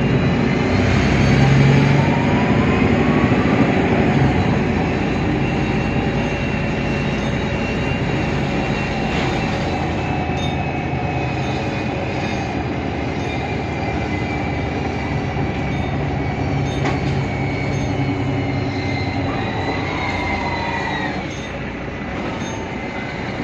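Mercedes-Benz Citaro O530 Ü bus's OM 906 hLA six-cylinder diesel and Voith DIWA automatic gearbox running, a steady drivetrain noise with whining tones that rise in pitch. One whine climbs in the first few seconds; a higher one rises around twenty seconds in and then cuts off as the overall sound drops a little.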